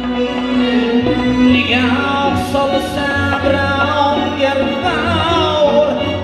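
Live Uzbek folk music: a male voice sings drawn-out, gliding phrases over a small ensemble of long-necked plucked lute, bowed ghijak fiddle, doira frame drum and keyboard.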